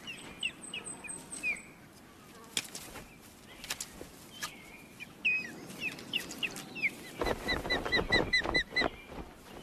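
Ospreys calling at the nest: short, rising whistled chirps in scattered groups, then a fast run of about ten chirps near the end, mixed with wing flaps.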